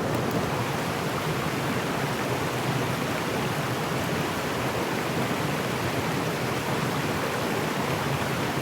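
Mountain stream rushing steadily, an even, unbroken wash of running water.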